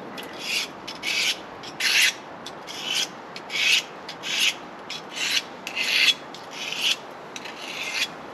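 Stanley 10-049 pocket knife blade being sharpened by hand: about ten even scraping strokes, one every half second to second.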